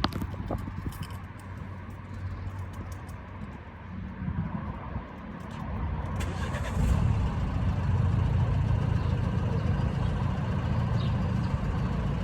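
Nissan Qashqai's engine starting about six seconds in and then running steadily at idle, after a few clicks of handling at the start.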